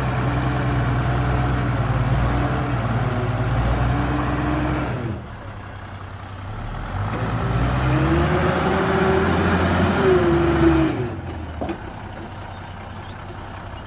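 Heavy diesel engine of earthmoving machinery revving up under load twice: it climbs, holds for about five seconds and drops back, then does the same again, settling lower near the end.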